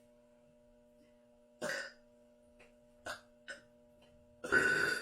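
A person burping: a short burp about one and a half seconds in, two quick short ones around three seconds, then a longer, louder burp starting near the end. A faint steady hum runs underneath.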